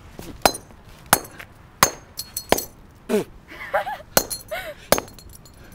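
Red-handled hammer smashing a small object on asphalt: about six sharp clinking blows, roughly one every two-thirds of a second, with a longer pause in the middle.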